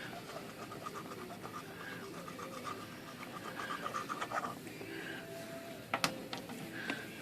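Quick, even scratching strokes of a glue applicator spreading glue over the core of a Royal 10 typewriter's platen. The strokes stop after about four and a half seconds, and there is a sharp click about six seconds in.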